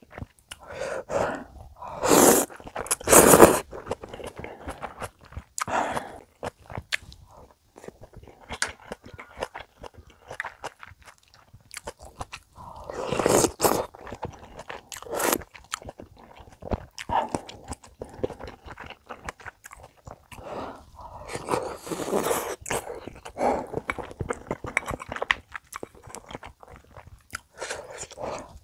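Close-miked eating sounds: ramen noodles slurped in loud bursts a couple of seconds in, broth sipped from a spoon about halfway through and again later, and wet chewing with many small clicks throughout.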